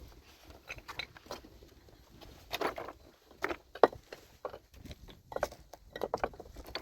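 Scattered light clicks and knocks at an irregular pace, a few louder ones near the middle.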